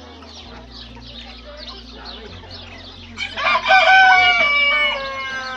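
A rooster crows once, a long call starting about three seconds in and dropping in pitch at its end, over faint chirping of small birds.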